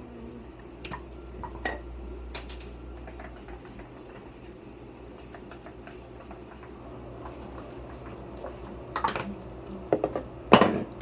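Pump-spray bottle of body mist sprayed onto hair: a string of light clicks and short hisses among handling noises, with a few louder hissing bursts near the end.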